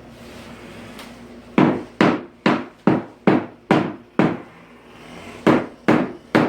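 Hammer striking wood in two runs of blows, about two a second: seven strikes, a short pause, then three more.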